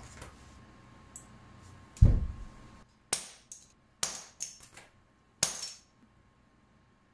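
Hand tools knocking and clinking while heavy-gauge cable ends are prepared. There is a heavy thump about two seconds in, then a run of sharp clicks and knocks broken by dead-silent gaps.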